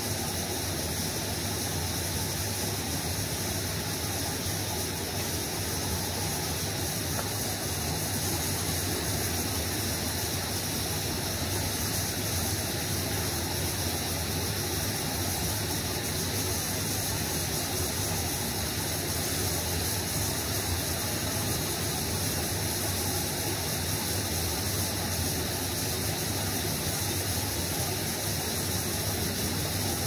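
Steady rush of a shallow river running over a stony bed, an even noise without breaks.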